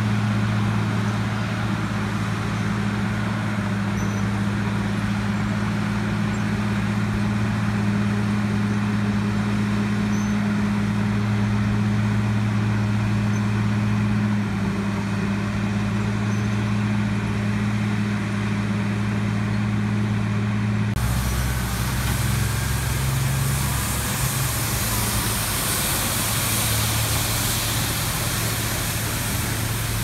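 Asphalt cold-milling machine working the street with a steady low diesel drone. About two-thirds through it switches abruptly to a street sweeper truck running, with a loud steady hiss from its brooms over the engine.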